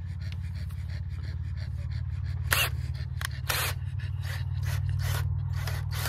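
Heavy, irregular panting breaths close to the microphone, starting about halfway in, over a steady low hum.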